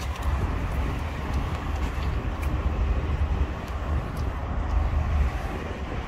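Wind buffeting the microphone: an uneven low rumble over a steady wash of outdoor noise.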